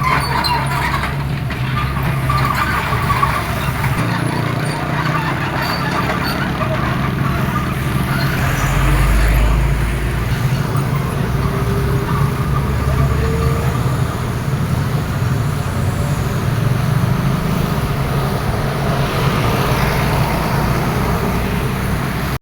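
Hydraulic excavators' diesel engines running under load, the low engine note drifting up and down as the machines work, with a louder low rumble about nine seconds in.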